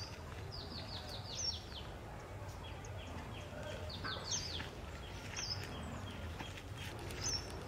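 Birds calling: two runs of quick, short, falling chirps, one near the start and one about four seconds in, with scattered single chirps between, over a steady low outdoor background rumble.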